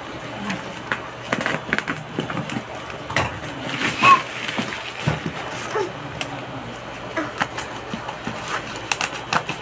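Plastic parcel wrapping and bubble wrap crinkling and crackling as the package is pulled and torn open by hand, with a brief high vocal squeal about four seconds in.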